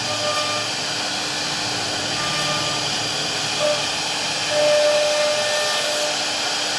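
CNC wood router running: a steady hissing whir, with short whining tones that come and go every second or so.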